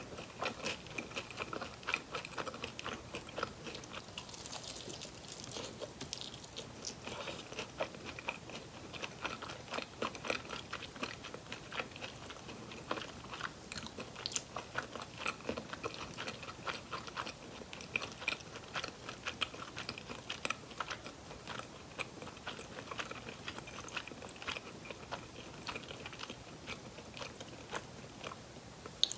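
Close-miked chewing and biting of fried chicken drumsticks: a steady run of many small, sharp crunches.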